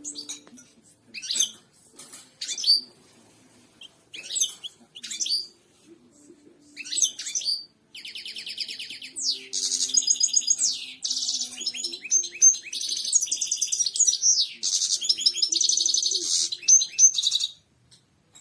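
European goldfinch singing: scattered short twittering calls, then about eight seconds into it a long, dense run of fast, tinkling trills and twitters that stops near the end.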